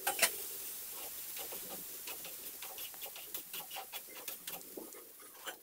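Light, irregular clicking, a few clicks a second, from the keypad buttons of a small feature phone being pressed, over a faint hiss.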